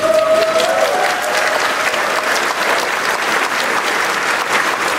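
Audience applauding steadily in a large hall, with a held whoop from the crowd over the first second.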